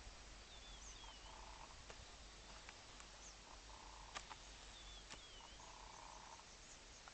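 Faint rural ambience with wildlife calling: thin sliding chirps and a short buzzy call repeating every two to three seconds, with a few faint clicks.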